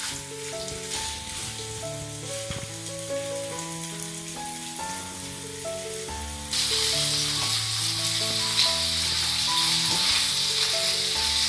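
Chicken thighs sizzling skin-side down in hot oil in a skillet. The sizzle turns abruptly louder about six and a half seconds in. Background music with a simple melody plays over it.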